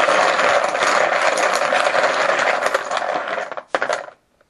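A handful of poker chips rattling and clattering as they are shaken together to mix them before one is drawn: a dense, continuous clatter that stops about three and a half seconds in, followed by one short last shake.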